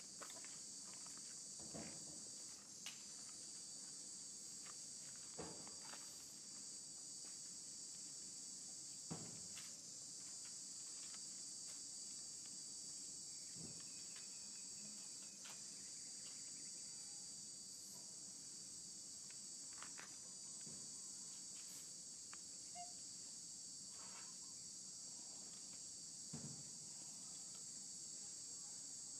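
A steady, high-pitched insect chorus, with occasional faint clicks and taps.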